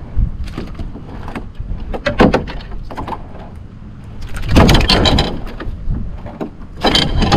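Irregular knocks, scrapes and rattles in a canoe as a freshly caught bass and fishing gear are handled, with the loudest clattering bursts about four and a half seconds in and again near the end.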